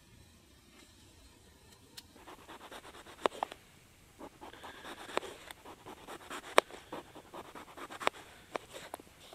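Knife slicing raw potatoes in a plastic container: irregular cutting clicks and taps begin about two seconds in, with a few sharper knocks among them.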